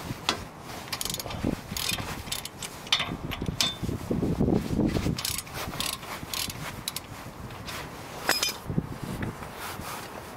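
Socket ratchet clicking in quick runs as the 17 mm brake caliper bracket bolts are worked loose, with some knocking of the tools against the bracket.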